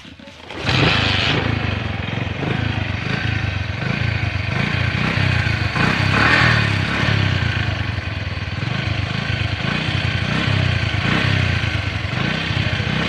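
Small motorcycle engine that comes in suddenly about half a second in and then runs steadily with a pulsing low rumble, rising and falling a little.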